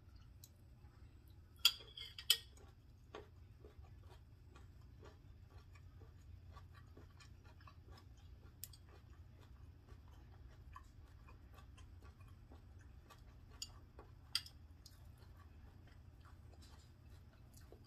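Quiet eating: faint chewing with a metal fork clinking against a ceramic plate. The loudest are two sharp clinks about two seconds in and two more about fourteen seconds in.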